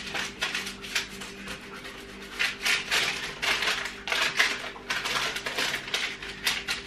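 Parchment paper in a baking tray rustling and crinkling as a pastry brush spreads oil over it, with light knocks against the metal tray, in many short irregular strokes. A steady low hum runs underneath.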